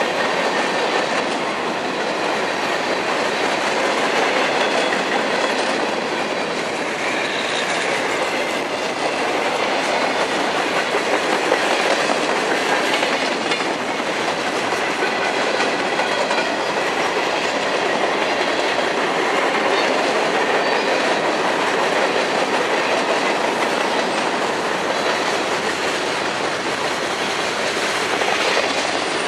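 Train cars rolling steadily past, their wheels clacking over the rail joints.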